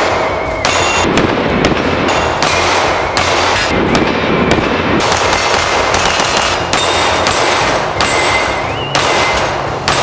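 A series of 9mm semi-automatic pistol shots, sharp reports a second or so apart, over background music.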